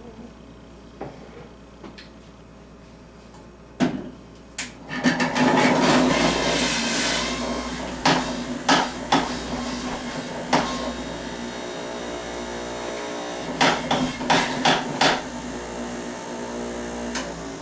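Stainless-steel centrifugal juicer starting about five seconds in and running with a steady hum, grinding carrots and apples pushed down its feed chute, loudest in the first few seconds of crunching. Sharp knocks and clatter come through the running, and the motor stops shortly before the end.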